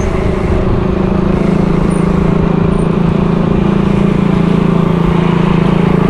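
A motor vehicle's engine running steadily close by: a steady low hum over a rough rumble.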